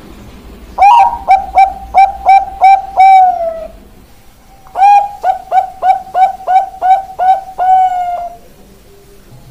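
Zebra dove (Bangkok-strain perkutut) singing: two phrases of quick, repeated coos, about three a second, each phrase ending in a longer drawn-out note.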